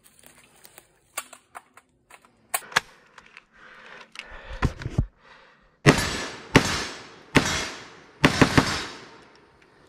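Palmetto State Armory KS47 rifle, an AK-pattern 7.62x39 carbine, firing five shots at a paper target, roughly a second apart with the last two close together, after a few small clicks of the rifle being handled.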